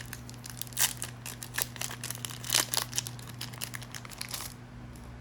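Foil booster-pack wrapper crinkling and tearing in the hands, a rapid crackle with two louder rips, stopping about four and a half seconds in.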